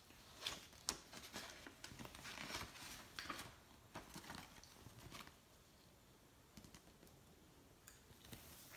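Faint rustling and soft flicks of a paperback picture book's paper pages being handled and turned, busiest in the first five seconds and dying away after.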